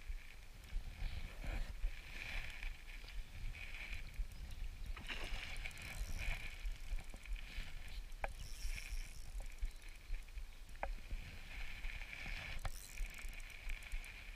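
Shimano Stradic spinning reel being cranked in stretches of a second or two as a hooked trout is played, with water splashing from the fish and a low rumble on the microphone.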